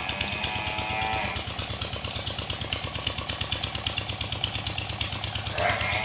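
An engine running steadily with a fast, even chugging beat. A drawn-out pitched call with several tones sounds over it once at the start and again near the end.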